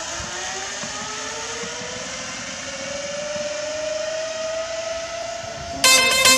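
Zipline trolley's pulleys running along the steel cable with a whine that rises steadily in pitch as the rider picks up speed, over a steady hiss. Music with a beat comes in suddenly near the end.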